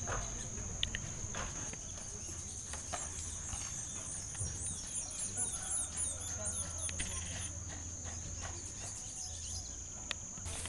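Rural outdoor ambience: a steady high-pitched insect buzz, with scattered bird chirps and faint distant voices. The buzz cuts off near the end.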